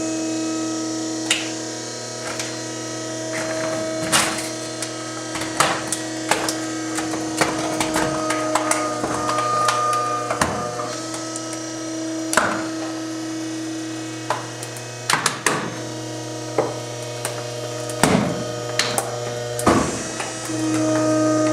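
A compactor's motor runs with a steady hum while a space heater is crushed, its plastic housing cracking and snapping many times at irregular intervals. The motor's tone shifts near the end.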